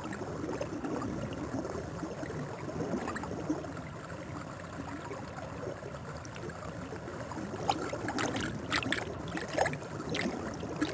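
Hot-spring water trickling and gurgling steadily in a rock basin, with a few brief sharper sounds about three-quarters of the way in.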